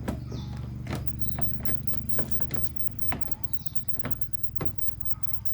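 Plastic clicks and knocks as a fog lamp unit and its wiring connector are handled and pushed into place in a car's front bumper, about a dozen separate taps, over a steady low hum.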